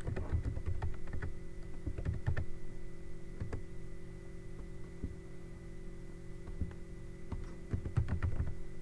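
Computer keyboard keys clicking in irregular short runs of typing, busiest in the first few seconds and again near the end with a lull between, over a steady hum.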